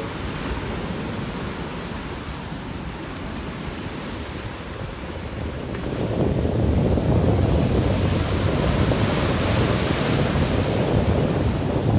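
Ocean surf breaking and washing up a sandy beach, a steady rush that grows louder about halfway through as bigger waves break close by, with wind on the microphone.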